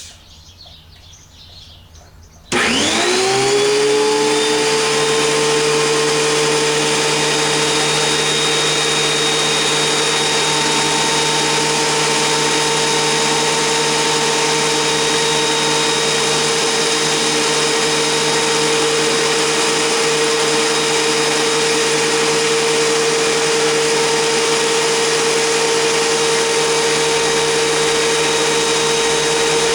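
WEN 6552T 13-inch benchtop thickness planer switched on about two and a half seconds in: the motor spins up with a quickly rising whine, then runs steadily at full speed.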